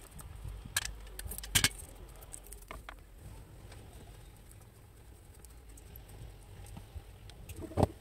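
Small clicks and rustles of hands working a coaxial cable, twisting a metal F-connector onto its end, with sharp clicks about a second and a half in and again just before the end, over a steady low rumble.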